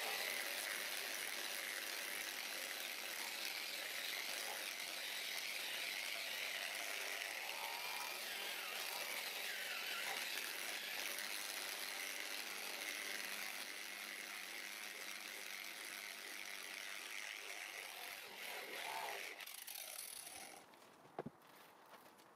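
Corded electric polisher running steadily, its yellow foam pad buffing an epoxy resin and walnut tabletop coated with car polishing paste. It stops about 20 seconds in, and a brief click follows shortly after.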